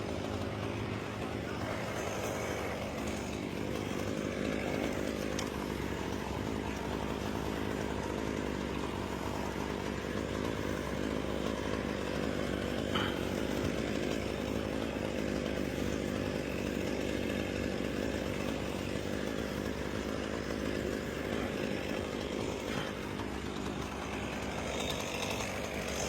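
Chainsaw running steadily while cutting wood, its engine pitch dipping and recovering a couple of times as it bogs under load.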